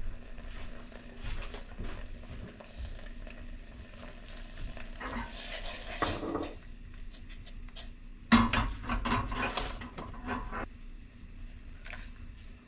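Glass saucepan of simmering oyster liquor being handled on a gas stove's iron grate: clinks, scrapes and stirring, with a few louder clatters about five seconds in and again from about eight seconds in.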